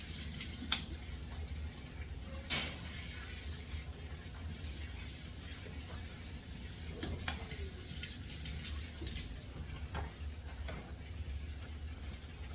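Chicken wings frying in hot oil, sizzling as a steady hiss, with a few sharp clinks of utensils or dishes.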